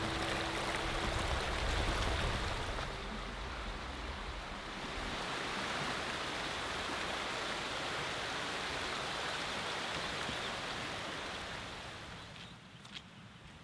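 A shallow stony river running over rocks: a steady rush of water that fades out about twelve seconds in.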